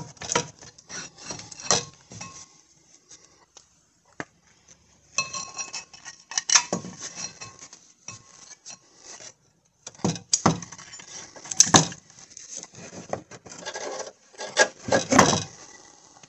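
Metal clinks, scrapes and rubbing in short, irregular bursts as a front brake caliper is worked off its rotor and hung on a caliper hook.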